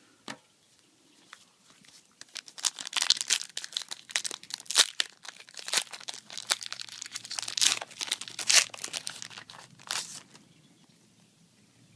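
Foil wrapper of a Yu-Gi-Oh booster pack being torn open and crinkled: a dense run of sharp crackles starting about two seconds in and stopping shortly before the end.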